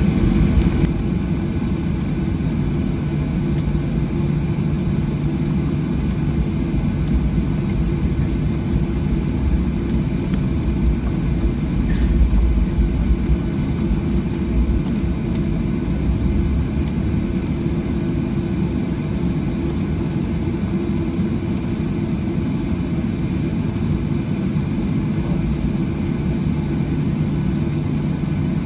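Cabin noise of a Boeing 737 airliner taxiing: the engines hum steadily at low power over a low rumble from the wheels on the pavement. The rumble swells briefly about twelve seconds in.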